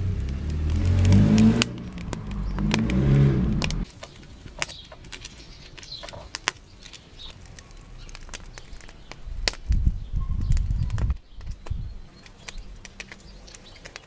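Wood fire crackling inside a steel wheel-rim stove, with many sharp pops and snaps. A loud low rumble runs under it for the first four seconds and comes back briefly about ten seconds in.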